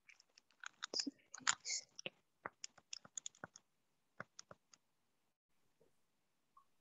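Faint, irregular sharp clicks and taps, like keys being pressed. There are many in the first few seconds, and they die away about five seconds in.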